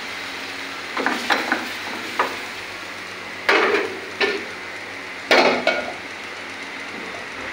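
Cumin seeds frying in hot ghee in a black wok on a gas burner, a steady sizzle, broken by several sharp metal clanks as pans are swapped and moved on the burner grate.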